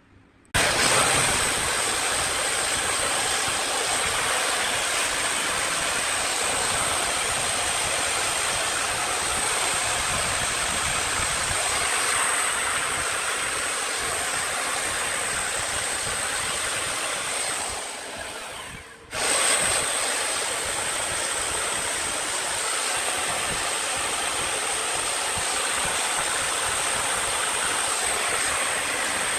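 Chainsaw cutting into a cedar log, running steadily with a high whine over a loud hiss of cutting. It starts suddenly about half a second in, fades and drops out for a moment about two-thirds of the way through, then comes straight back.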